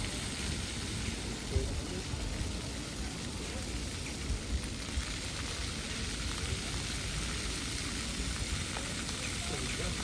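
Steady hiss and splash of a large fountain's water jets falling into its basin.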